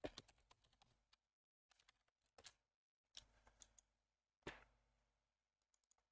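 Near silence broken by a few faint, scattered clicks of a computer keyboard and mouse, the loudest about four and a half seconds in.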